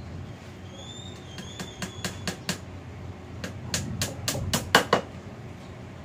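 Hand hammer driving a nail into plywood: two runs of quick blows, the second longer and louder.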